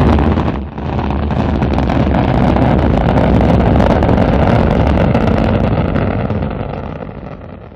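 Rocket engine firing: a sudden loud burst of thrust, a brief dip, then a steady engine noise that fades away near the end.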